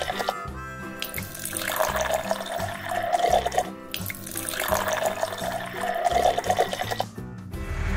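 Sound effect of taps running and pouring liquid, swelling and fading three times, over background music. A truck engine's low rumble comes in at the very end.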